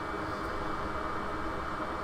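Steady whooshing hiss of a small blower fan at an electronics repair bench, even throughout.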